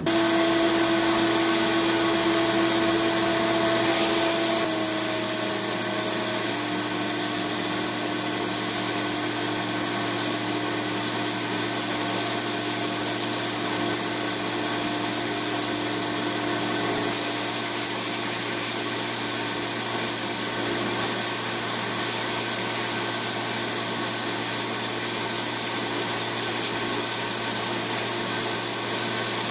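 Abrasive blast cabinet running: a steady hiss from the blast gun as it strips paint off a pressed-steel toy truck part, over a motor hum. The sound starts suddenly, and the hum drops slightly in pitch about five seconds in.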